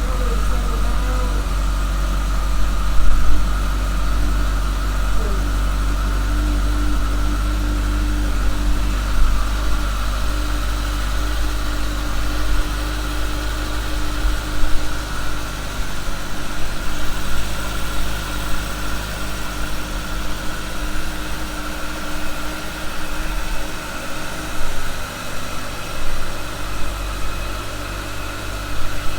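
Stock 2018 Kawasaki ZX-14R's 1,441 cc inline-four engine idling steadily.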